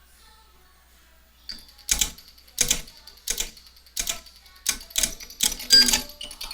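Ameritec AM-48 transmission test set clicking sharply, about one to two clicks a second, starting about a second and a half in, as it is switched back on and fails to stay on with a power-supply fault.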